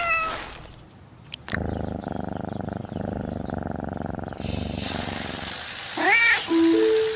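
A cat meows briefly, then purrs with a fine, even rhythm for a few seconds. A hiss of lawn sprinklers spraying comes in about four seconds in, and the cat gives another rising meow near the end.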